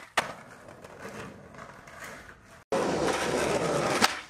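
Skateboard on concrete. The board cracks down sharply just after the start, followed by quieter rolling with faint knocks. About two and a half seconds in, hard polyurethane wheels roll loudly and steadily over rough concrete, and near the end the board gives a sharp snap as a trick is popped.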